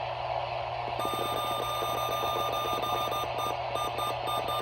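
A steady high electronic tone over a low mains-like hum and crackling static. The tone starts about a second in and, past the middle, breaks up into short intermittent beeps.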